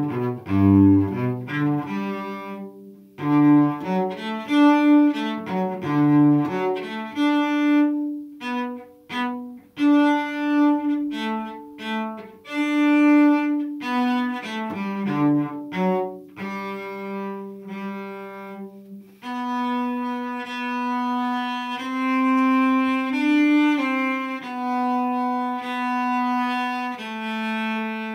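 Cello bowed solo: a run of short, detached notes with brief gaps between them, turning to longer held notes about two thirds of the way in.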